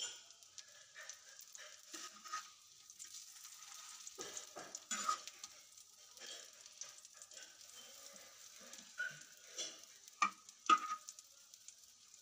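Kababs shallow-frying in ghee on a flat griddle pan, giving a soft, steady sizzle with light crackling. A metal slotted spatula scrapes and clatters against the pan as the kababs are turned, loudest around five seconds in and again near ten seconds in.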